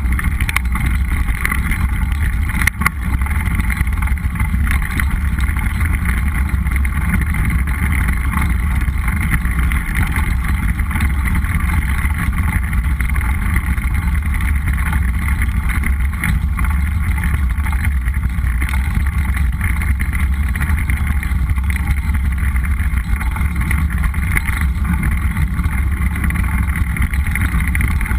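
Mountain bike rolling along a dirt trail: a steady rumble of tyres on dirt and frame vibration, with wind over the microphone. A single sharp knock comes about three seconds in.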